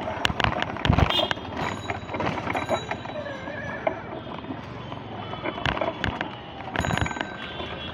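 Busy street noise with repeated sharp clicks and the ringing strikes of cycle-rickshaw bells, loudest about a second in and again near the end.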